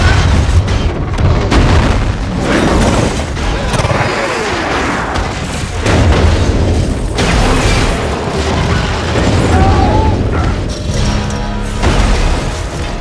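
A bullet train derailing in a film: a dense, loud din of crashing and scraping train cars with several heavy booms, under a music score.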